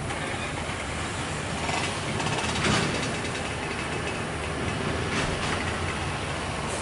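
Heavy diesel truck engines running at low revs, a steady low drone, with short bursts of hiss about two and a half and five seconds in.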